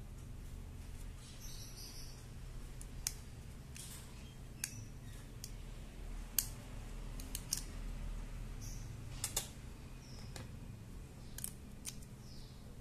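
Small sharp plastic clicks and taps at uneven intervals, a dozen or so, the loudest about six seconds in: the RANRES smart tracker's plastic case and battery being handled during a battery swap.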